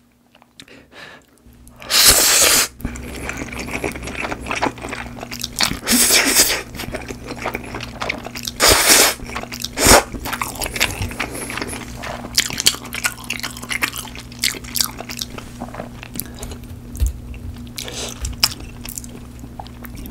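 Close-miked eating of creamy carbonara fire noodles: a few loud slurps, the first about two seconds in, then steady wet chewing and mouth clicks.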